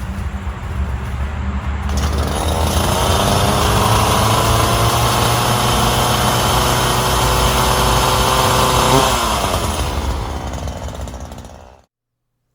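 Ryobi 37cc two-stroke gas chainsaw running: it idles low, then from about two seconds in revs high and holds there with its pitch creeping up. About nine seconds in it drops back and fades out.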